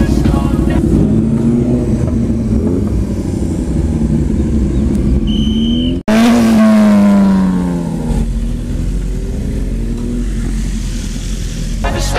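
Superbike engines revving and riding past close by, the pitch of the engine note rising and falling. Just after a brief dropout about six seconds in, one bike passes loudest, its pitch falling over about two seconds.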